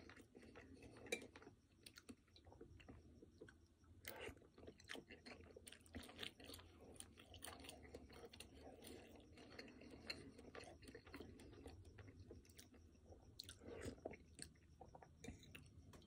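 Soft, close-up chewing of mouthfuls of chicken pozole with hominy, with small wet mouth clicks throughout. A metal spoon tapping and scraping in a ceramic soup bowl, with one sharper click about a second in.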